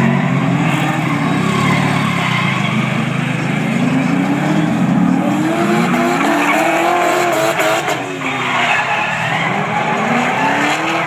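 Two drift cars sliding in tandem: their engines rev up and down over and over while the tyres screech. One car passes close and its pitch sweeps down about eight seconds in.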